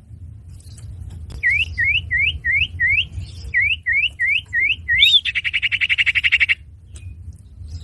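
Common iora (cipoh) calls: a run of about ten quick, upward-sweeping whistled notes in two groups, then a higher note that leads straight into a fast buzzing trill lasting over a second, over a low steady hum.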